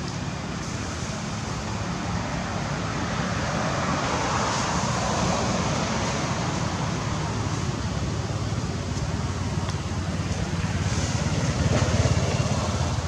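Steady road traffic noise from vehicles passing nearby, swelling about four seconds in and again near the end.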